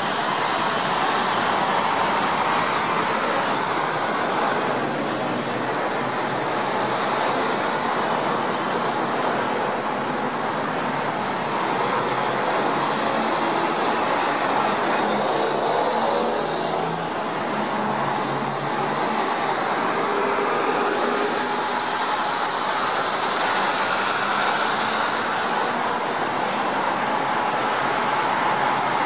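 Steady noise of busy multi-lane highway traffic passing: tyres and engines, with a few faint high whines rising and falling.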